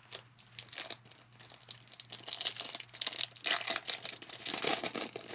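Foil wrapper of a 2020 Bowman baseball card pack crinkling as it is torn open by hand, densest and loudest in the second half.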